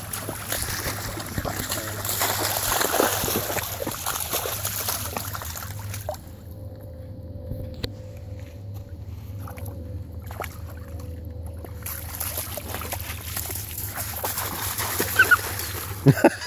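Dogs splashing and wading through shallow water, with a quieter stretch in the middle while they are out of the water on the gravel.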